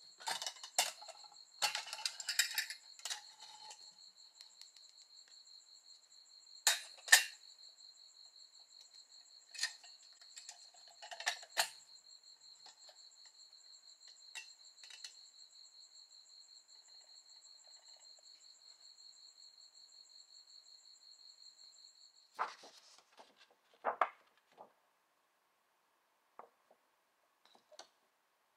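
Clicks and metal clinks of a small metal-and-glass candle lantern being handled as a small LED stick light is fitted inside it, in scattered groups, the loudest a pair of clinks about seven seconds in. A steady high-pitched trill, like crickets, runs underneath and cuts off sharply about three-quarters of the way through.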